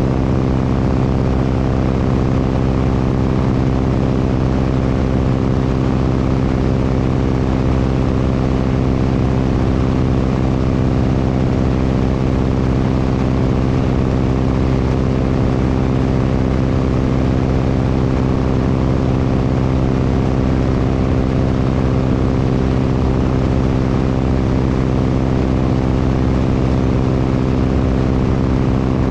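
Propeller airplane's piston engine running steadily at constant power, one even pitched hum with no change in speed.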